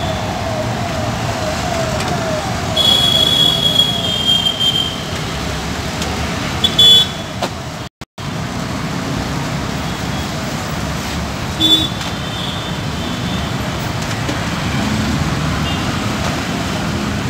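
Steady road traffic noise, with a repeating falling siren-like tone that fades out over the first few seconds and short high-pitched toots a few times, about three, seven and twelve seconds in. The sound cuts out briefly about eight seconds in.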